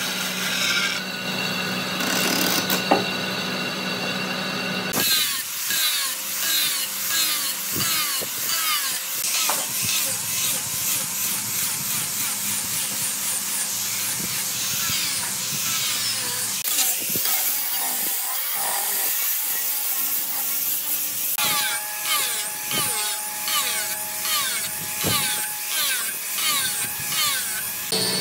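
Woodworking tools on doussie wood: a power tool runs for about five seconds, then a tool works the wood in repeated back-and-forth strokes, about two a second.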